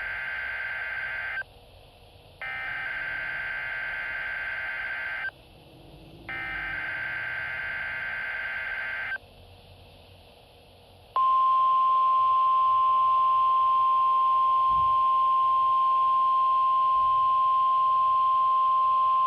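NOAA Weather Radio emergency alert signal: the end of one burst and two more full bursts of the buzzing SAME digital header, each about three seconds long with a second's gap, then after a short pause the steady, loud 1050 Hz warning alarm tone. It marks the start of a Required Weekly Test of the station's alarm system.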